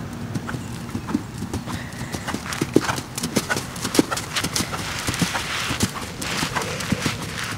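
Horse's hooves striking sand arena footing at the trot, a quick uneven run of thuds, loudest as the horse passes close about halfway through.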